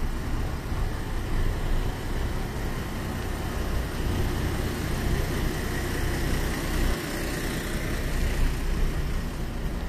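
Street traffic: a city bus's engine running as it passes close by, with cars moving on the road.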